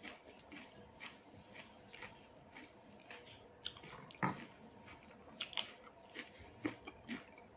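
A person chewing food close to the microphone: faint, uneven clicking chews about once or twice a second, one louder chew about four seconds in.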